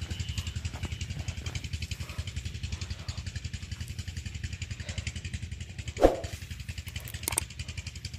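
An engine running steadily nearby, a fast, even low thudding of about ten beats a second. One short, loud sound cuts in about six seconds in.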